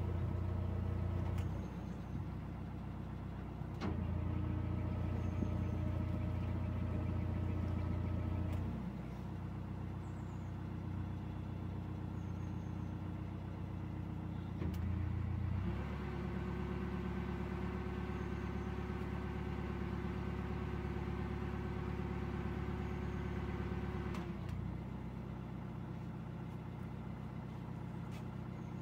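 Narrowboat diesel engine running at low, slow-cruising revs. Its note changes in steps several times as the throttle is eased up and down.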